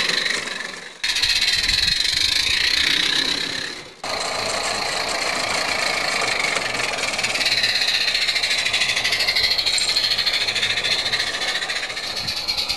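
A 16mm-scale live-steam garden railway locomotive running, a rapid rattling chuff with steam hiss and wheel clatter on the track. The sound cuts off abruptly about one and four seconds in, then carries on.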